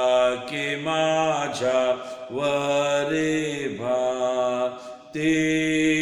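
A man singing a slow Marathi Christian hymn solo, holding each note long and bending the pitch between notes, with short breaths in between.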